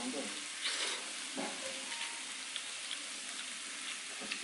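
Meat sizzling on a hot grill, a steady sizzle, with a few sharp clicks of metal utensils against dishes.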